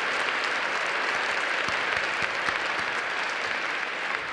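A large audience applauding, a steady dense clapping that eases off slightly near the end.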